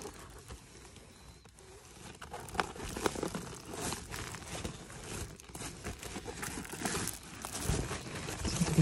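Crinkling and rustling of black plastic bags and stiff folded sails being handled and pushed aside by hand: faint at first, busier from about two and a half seconds in.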